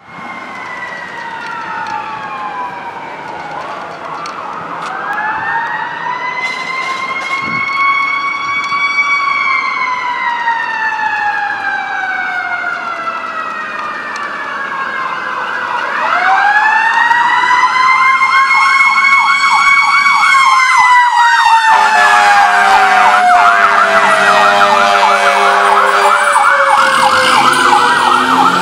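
Fire engine siren wailing in long, slow rises and falls, growing louder as the truck approaches. About halfway through, a fast warbling yelp joins the wail, and for the last several seconds a steady blaring tone sounds over it as the engine passes close by.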